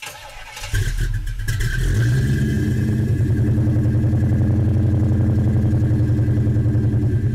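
A car engine starts with a sudden burst about three-quarters of a second in, then settles into a steady, pulsing idle.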